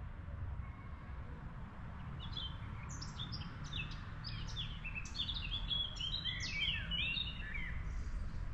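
A songbird singing one fast, varied song of short high notes, ending in a flourish of falling notes, over a steady low rumble.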